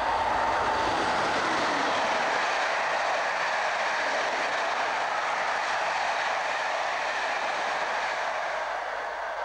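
British Rail AC electric locomotive and its train of coaches passing close at speed: a steady rushing roar of wheels and carriages on the rails, loudest at the start and slowly easing off near the end. A thin whine drops slightly in pitch in the first second as the locomotive goes by.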